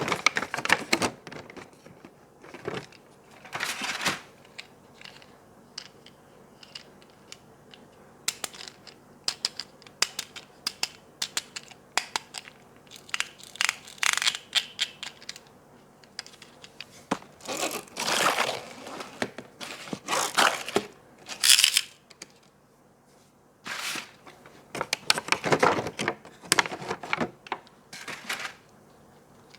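Toy packaging being handled and opened: irregular bouts of crinkling, tearing and rustling plastic and cardboard, with small clicks and short pauses between them.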